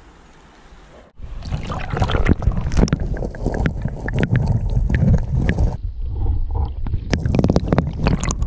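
River water sloshing and crackling around a camera plunged underwater: a sudden start about a second in, then loud muffled rumbling and splashing with many sharp crackles.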